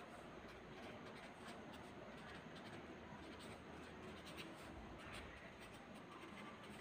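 Faint scratching of a pen writing on lined notebook paper.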